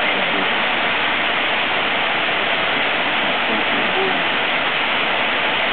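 Steady rushing hiss, even and unbroken, with faint low voices murmuring under it.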